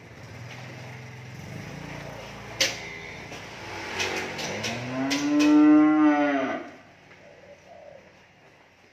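A cow moos once, about five seconds in: one long, loud call that rises and then falls in pitch. A few sharp knocks come just before it.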